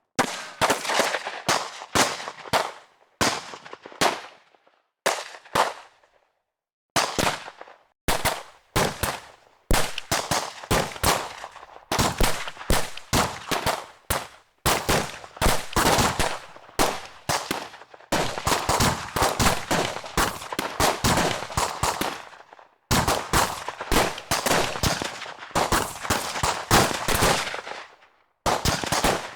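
Bursts of automatic gunfire: rapid shots in runs from under a second to several seconds long, separated by brief pauses, with a long, nearly unbroken stretch of fire through the middle.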